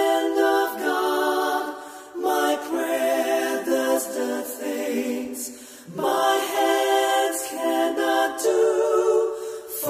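Unaccompanied voices singing a worship song in held sung phrases, pausing briefly about two and six seconds in.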